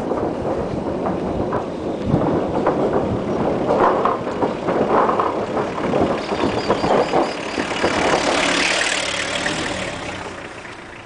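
Renault Kangoo van driving slowly across an old iron truss bridge, its engine running under a steady clatter and rattle of knocks from the bridge deck. The sound swells as the van passes right over the microphone about eight seconds in, then fades away near the end.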